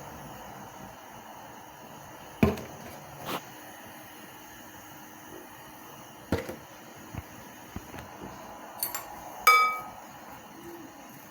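Several separate knocks and clinks of kitchen utensils against cookware, spaced a second or more apart; the loudest, near the end, rings briefly.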